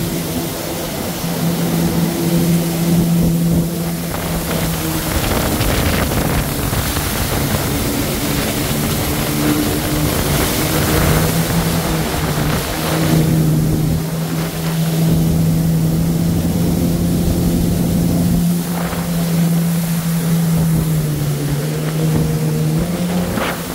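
Jet ski engine running at speed, heard from aboard, a steady drone whose pitch dips a few times, over rushing water spray and wind.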